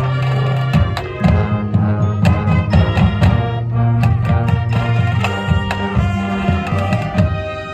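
Marching band playing: sustained brass chords over a low bass line, with frequent sharp drum hits.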